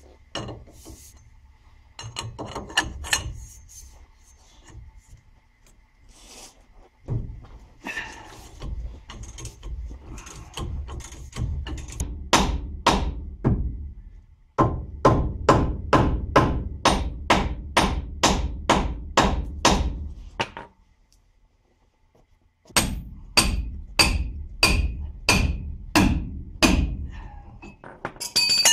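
Hammer blows on steel, knocking apart the worn tie rod end on a 1999 Ford F-150's steering linkage. Irregular knocks at first, then long steady runs of about two strikes a second with a short pause between them.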